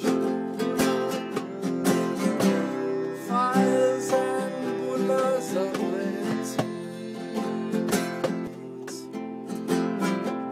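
Music: a strummed acoustic guitar with a steady rhythm.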